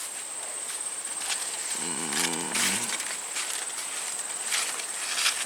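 Insects buzzing steadily at a high pitch, with a few sharp crackles as corn ears and husks are handled and broken. About two seconds in there is a short wavering animal call.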